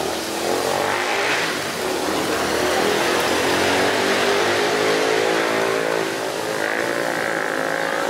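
Steady rush of a waterfall and the stream below it, with a steady hum mixed in underneath.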